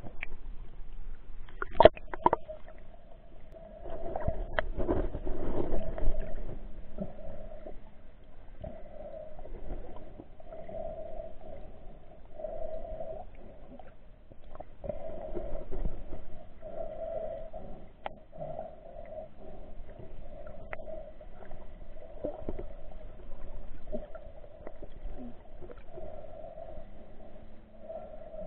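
Snorkeler breathing in and out through his snorkel with his face in the water, heard muffled from underwater through a waterproof camera housing, a breath about every one to two seconds. Splashing and knocks against the camera in the first six seconds.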